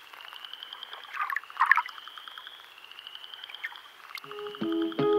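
Frogs calling: a steady high trill with rapid pulsing calls beneath it and a few louder short croaks. About four seconds in, plucked acoustic guitar music begins.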